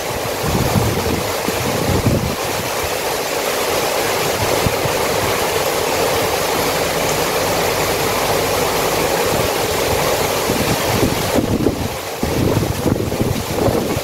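Heavy rain pouring steadily, a dense even hiss of falling drops, with wind gusting on the microphone in low rumbles.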